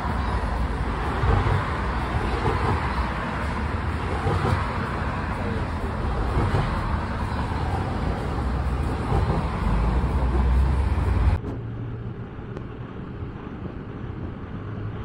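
Street traffic noise: a steady wash of passing cars with a strong low rumble. It drops suddenly to quieter street ambience about eleven seconds in.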